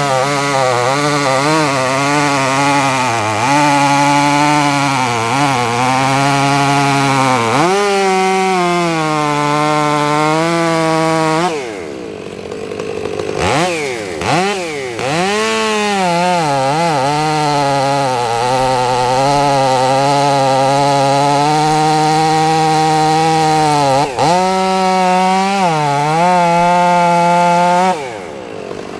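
Gas chainsaw running at high throttle while cutting, its pitch sagging and recovering as the chain loads in the wood. It drops off about twelve seconds in, revs back up, and drops again near the end.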